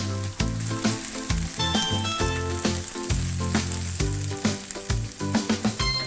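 Shallots, garlic, ginger and whole spices sizzling as they sauté in oil in a pan, a steady frying hiss, with background music playing over it.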